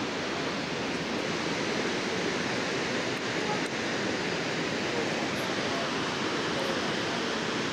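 Large waterfall: a steady, even rush of falling water and spray.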